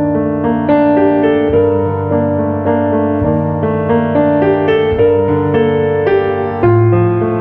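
Background piano music: a steady run of notes over held low notes, with a louder new bass note coming in near the end.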